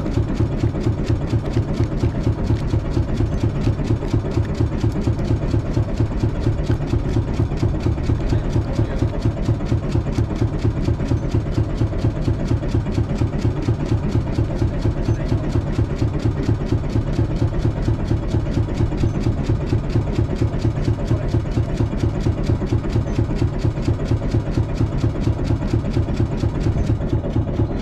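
A small fishing boat's engine running steadily, with a rapid, even pulsing beat.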